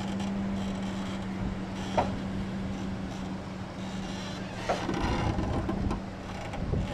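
Nissan Frontier pickup running steadily at low speed over rough ground, with a low rumble and two short sharp knocks, one about two seconds in and another near five seconds.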